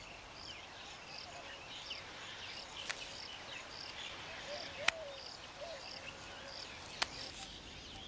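Faint outdoor wildlife ambience. A high chirp repeats evenly about three times every two seconds under faint bird twitters. Three sharp clicks stand out, near the middle and toward the end.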